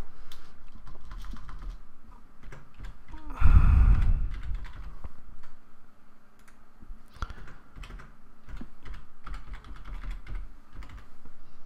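Computer keyboard typing: scattered key clicks in short runs. About three and a half seconds in, a louder low noise lasts about a second.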